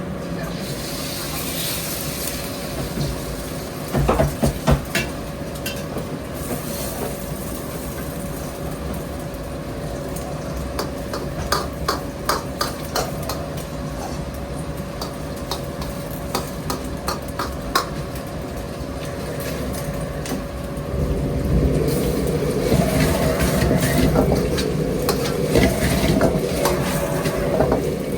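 Stir-frying in a kitchen: sizzling under a steady hum, with sharp clicks and clatters of utensils on the pan in the middle and louder, denser sizzling toward the end.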